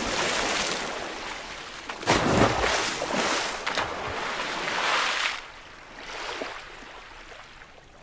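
Seawater splashing and rushing, with a sudden heavy splash about two seconds in, from humpback whales slapping the surface with their tails (lobtailing). It fades to quieter sea noise for the last couple of seconds.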